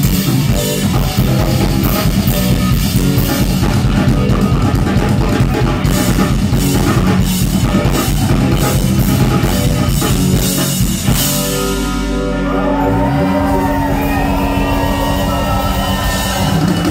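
Live rock band playing, with drum kit, electric guitar and bass. About eleven seconds in the drums drop out, leaving held notes with a sliding bass note and wavering, bending tones above it.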